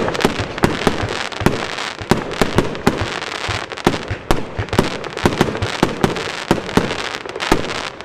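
Evolution Snowstorm compound fireworks cake firing: a rapid, unbroken run of sharp bangs from shots launching and bursting, several a second, over a steady hiss.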